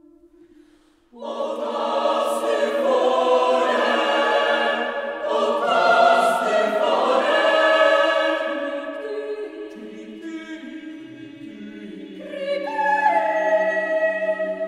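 Mixed SATB choir singing sustained chords. After a faint held note, the full choir comes in loudly about a second in, grows softer past the middle and swells again near the end.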